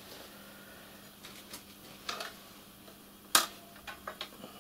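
Thin brass clamping band and its bolt being worked into place around a boiler's sheet-metal cladding: a few light clicks and taps, with one sharp, louder click about three seconds in.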